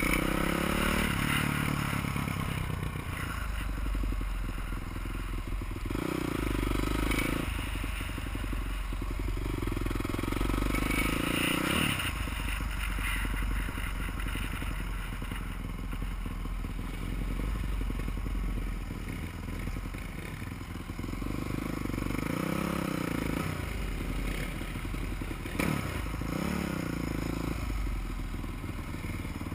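Supermoto motorcycle engine under way, the revs rising and falling again and again as the bike is ridden slowly. A single sharp knock sounds near the end.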